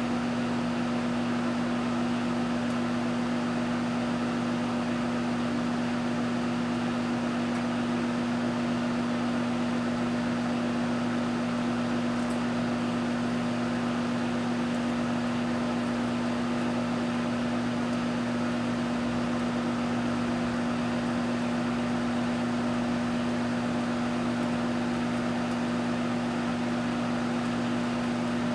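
Microwave oven running: a steady electrical hum with the whir of its cooling fan, unchanging throughout while it heats a frozen pizza.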